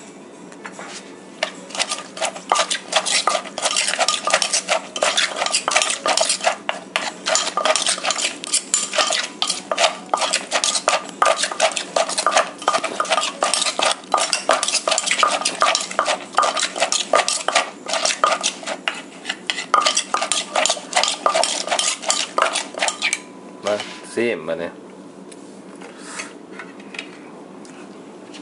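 Papaya salad being pounded and tossed in a mortar: a wooden pestle knocking and a spoon clacking and scraping against the bowl in quick repeated strokes. The pounding stops about 23 seconds in, followed by a few separate knocks and then quiet.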